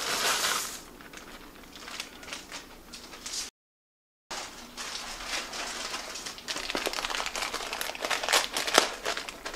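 Plastic bag crinkling and rustling as dried sorrel (hibiscus calyces) is shaken out of it into a pot of hot water, with a scatter of small clicks and crackles. The sound drops to dead silence for about a second a few seconds in.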